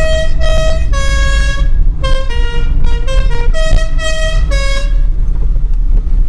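Background music: a swing-style tune with a horn-like melody of short held notes, over a low steady rumble.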